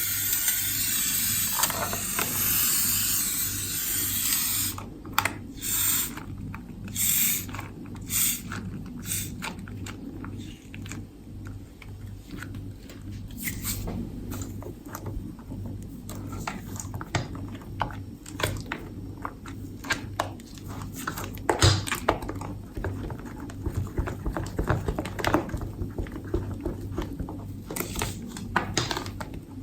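A hiss for the first four or five seconds, then slime being worked by hand: irregular sticky clicks, pops and squelches.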